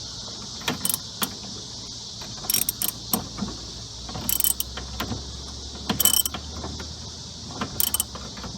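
Socket ratchet clicking in short bursts as it turns the steering shaft of a John Deere D105 lawn tractor from underneath, working the steering gear against the gear plate to check it for wear. A steady high hiss runs underneath.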